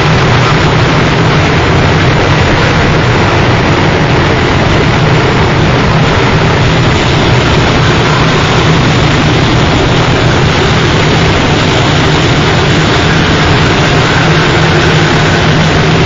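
Harsh noise music: a loud, unchanging wall of distorted noise over a steady low hum, with no beat or melody.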